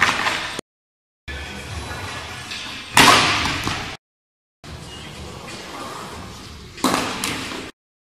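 Skateboard wheels rolling on smooth concrete, with a sharp loud clack of the board hitting the ground about three seconds in and again near the end. The sound drops out to dead silence twice between edited takes.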